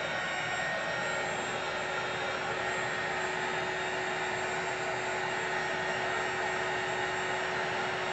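Small handheld craft heat gun blowing steadily: a constant fan whir with a steady hum.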